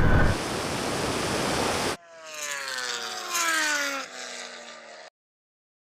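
Loud rushing wind noise at speed that cuts off suddenly about two seconds in. Then a vehicle's pitched drone falls steadily in pitch as it slows, in two stretches, and stops abruptly about five seconds in.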